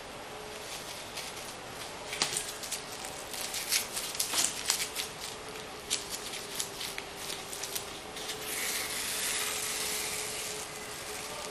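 Tape being peeled off the edge of a painting board, with the board being handled. There is a run of sharp crackling ticks, then a longer steady tearing hiss about three quarters of the way through.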